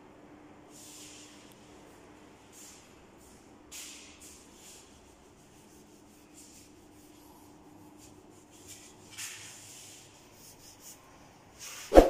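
Faint scraping strokes at irregular intervals over a low steady hum, with one sharp knock just before the end.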